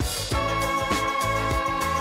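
Instrumental music with a steady beat and a long held note.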